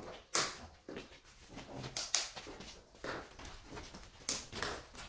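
Irregular scrapes and clicks of tile-laying on a bare concrete floor: shoes scuffing as a worker walks past, and plastic tile-leveling wedges being pushed into their clips along the joint of a large porcelain slab.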